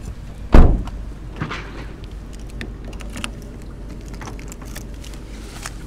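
A car door shutting with a heavy thump about half a second in, followed by scattered light clicks and knocks, with keys jangling.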